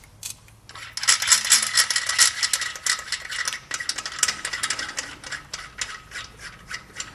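Small metal parts rattling and clinking against each other in a quick, irregular stream with a faint metallic ring, starting about a second in.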